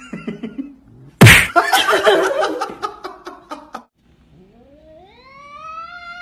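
Domestic cat yowling: one long drawn-out call that rises steadily in pitch over the last two seconds or so. Before it, about a second in, a loud sudden noise opens a couple of seconds of busy, mixed sound.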